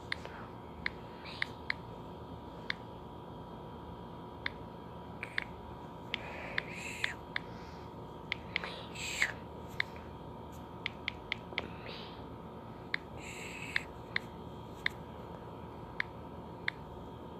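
Irregular sharp clicks from working a computer while animating, many single clicks with a quick run of them about eleven seconds in, and a few short scratchy rustles between them. A faint steady whine runs underneath.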